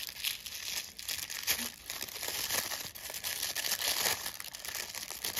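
Tissue paper crinkling steadily as hands unfold it from around a small charm, with the light rustle of a thin paper box being opened.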